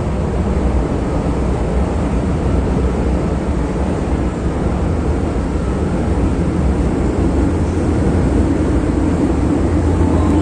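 MTR Island Line M-Train pulling out of an underground station: a steady low rumble from the train, growing slightly louder near the end.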